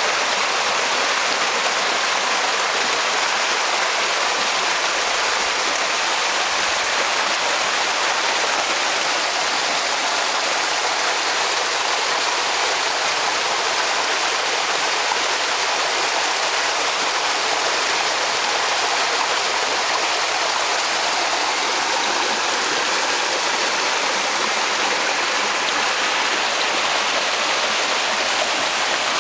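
Water from a burst old wooden water main gushing steadily out of the ground and rushing down a dug trench.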